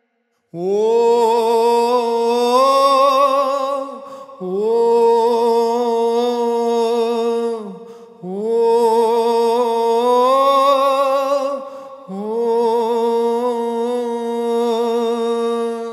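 A male singer holding four long notes, a few seconds each, with vibrato and a small upward slide into each one, over a steady drone.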